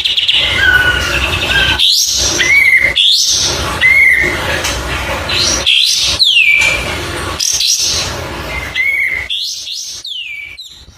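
Kapas tembak bulbul singing: a run of short chirps and whistled notes, some sweeping quickly downward, over a steady low background hiss. The song fades out near the end.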